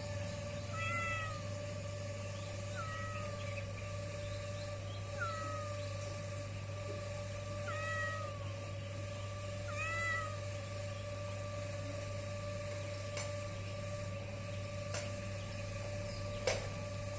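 Kitten mewing: five short, high calls over about the first ten seconds, two to three seconds apart, over a steady electrical hum. A sharp click comes near the end.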